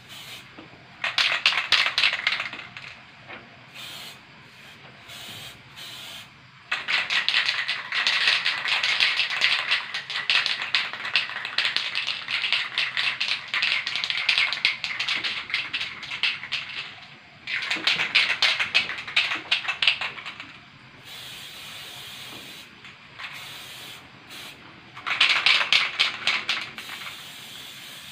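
Aerosol spray paint can hissing in separate bursts: a short spray about a second in, a long one of about ten seconds, then two shorter sprays.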